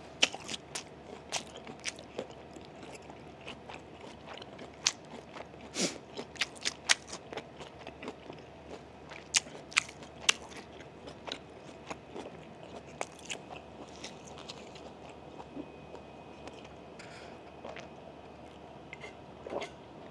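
Close-miked chewing: irregular wet clicks and crunches of food being chewed right at the microphone, frequent for the first ten seconds or so and sparser after.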